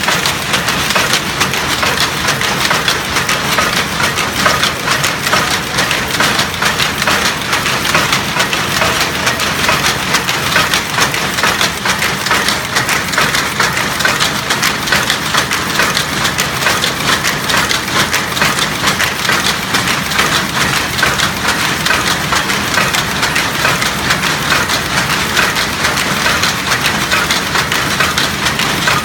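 1930 weaving loom running, a loud, unbroken mechanical clatter of rapid wooden and metal knocks.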